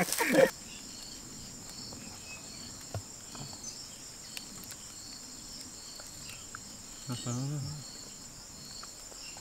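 Insects chirping steadily in a high-pitched, pulsing drone.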